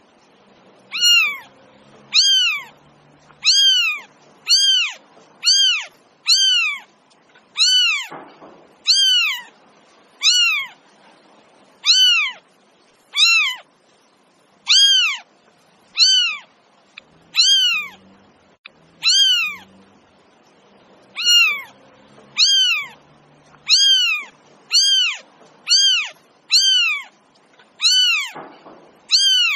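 A kitten mewing over and over, high-pitched calls about one a second, each rising then falling in pitch.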